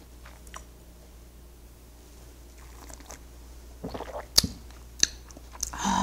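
Close-miked mouth sounds of a person tasting white wine: sipping, swallowing and small wet clicks of the mouth. About four seconds in, a few sharp clicks come, the sharpest as the wine glass is set down on the table. A short voiced sound follows near the end.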